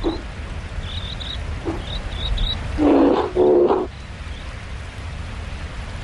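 Grizzly bear giving two short, low calls back to back about three seconds in, the second with a steady pitch. A few thin bird chirps come earlier, over a steady low rumble of wind.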